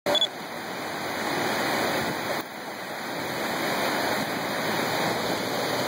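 Steady rush of river water pouring over a low-head dam spillway and churning below it.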